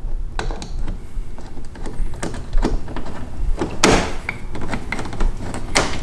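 Scattered small clicks and knocks of a hand screwdriver driving a short screw into a car's plastic interior door card, with two louder knocks about four seconds in and near the end.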